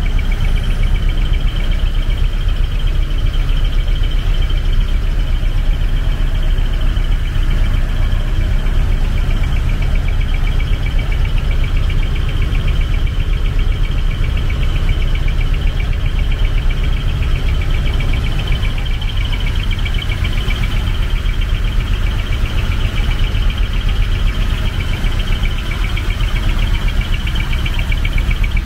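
Steady low rumble of a parked truck's diesel engine idling, with a steady high-pitched buzz that pulses rapidly over it.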